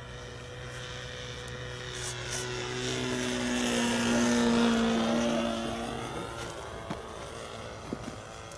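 Radio-controlled Riot model aeroplane flying past, its motor and propeller growing louder to a peak about halfway through, then falling away with a drop in pitch as it passes.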